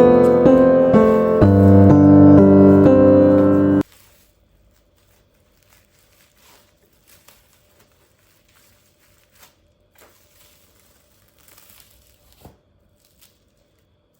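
Background piano music that cuts off abruptly about four seconds in, followed by faint scattered clicks and rustling.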